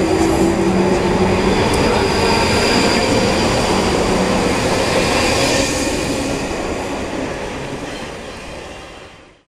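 A train running on the rails: a continuous rumble with a steady whine over it, fading out over the last couple of seconds.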